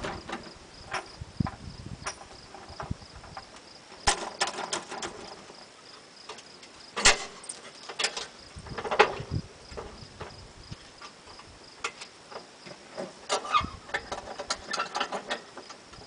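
Scattered metallic clanks, clicks and knocks of hand work on a John Deere GT262 garden tractor as its mower deck is readied for removal, in a few irregular clusters.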